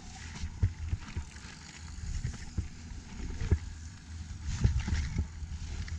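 Mountain bike rolling fast down a dry, rocky dirt trail: tyres crunching on gravel, the frame, chain and suspension rattling and knocking, with a steady wind rumble on the microphone. A hard knock comes about three and a half seconds in and more follow shortly after, as the bike goes down in a crash.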